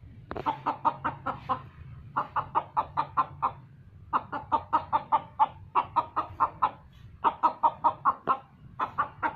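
Rooster clucking in quick runs of short clucks, about six runs of six to eight clucks each, with short pauses between runs.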